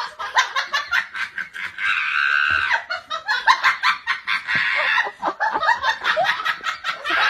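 A person laughing hard in quick, repeated bursts, with one longer drawn-out stretch about two seconds in.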